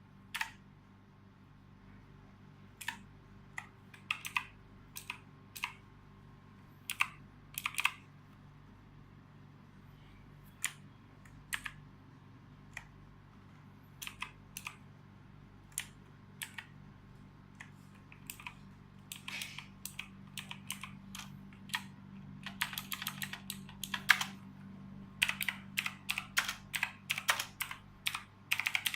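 Keys of an Imperion Mach 10 RGB mechanical keyboard being pressed: scattered single keystrokes at first, then faster typing in quick runs during the second half.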